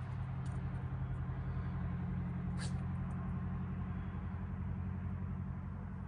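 A steady low hum throughout. Over it, the light ticking of a Belgian Malinois's claws and a handler's footsteps on a wet concrete sidewalk, with one sharp click about two and a half seconds in.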